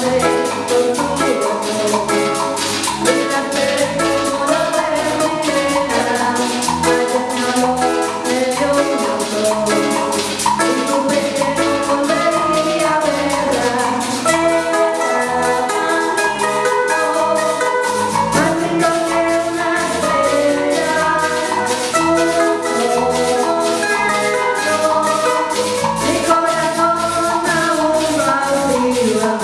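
Live merengue band playing: a metal güira scraping a fast, even beat over timbales, electric bass, guitars and a cuatro, with singers' voices on the melody.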